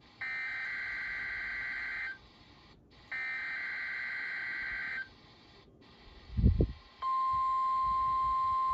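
NOAA Weather Radio emergency alert broadcast: two bursts of the SAME digital header's warbling data tones, each about two seconds long with a second's gap between them. A short low thump follows, and about seven seconds in the steady 1050 Hz weather-radio alert tone begins.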